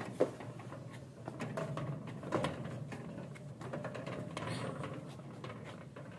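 Metal prayer wheels being turned by hand on their spindles: a quiet low rumble with scattered light clicks and knocks.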